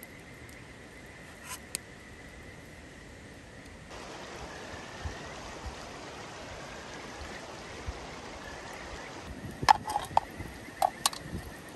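A quick run of sharp clinks and taps of camp cooking gear near the end, after a couple of single clicks early on, over a steady outdoor background hiss.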